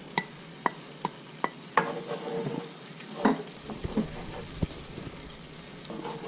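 Chopped onion and garlic sizzling in boiling fish juices in a cast-iron skillet, stirred with a metal spatula that clicks and scrapes against the pan at irregular moments over the steady sizzle.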